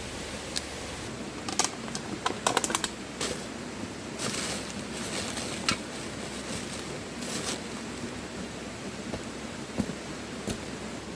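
Steady rushing of river water, with a quick run of sharp clicks and rattles about two seconds in and rustling over the next few seconds, handling sounds at close range.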